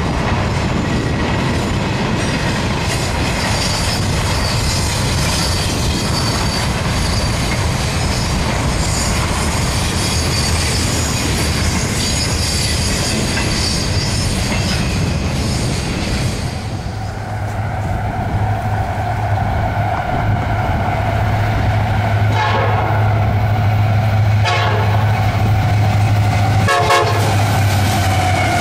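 Intermodal freight cars rolling past: steady rumble and clatter of wheels on rail with a thin high squeal. Partway through, after a cut, diesel freight locomotives pass with a low steady engine drone while the horn sounds a held chord.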